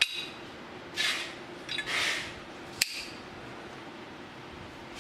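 Metal parts and a measuring tool being handled during an inspection. There are a couple of short scrapes about one and two seconds in, and sharp clicks at the start and just before the three-second mark, over a faint steady hum.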